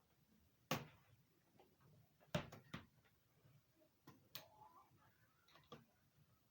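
A few scattered sharp clicks and taps from laptop parts being handled and pried apart, over faint room tone.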